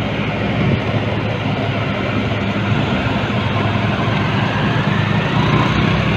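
Heavily loaded cargo truck's diesel engine pulling steadily and hard up a steep uphill bend, a continuous low engine drone mixed with road noise.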